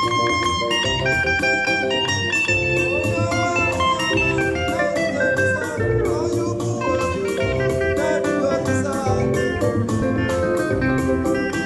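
Music led by plucked guitar, with many sustained notes over a steady beat.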